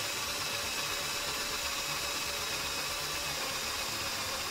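Pressurised nitrogen hissing out of a Mercedes W639 Vito front strut (shock absorber) through a freshly drilled hole, as the drill bit breaks through the sealed strut top. A steady, loud hiss.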